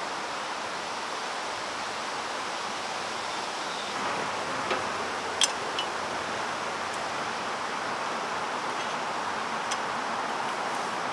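Steady rush of a valley stream flowing, with a couple of light sharp clicks about five seconds in.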